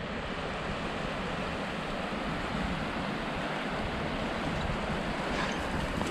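Steady rushing of a shallow mountain river running over rocks and riffles.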